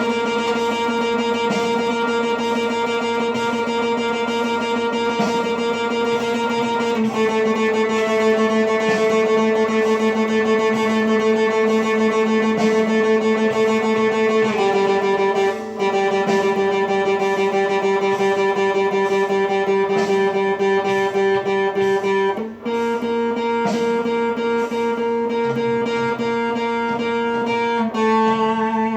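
Guitar-like plucked string instrument playing an improvised piece: repeated plucked notes over held notes that ring on, with the harmony shifting about every seven or eight seconds.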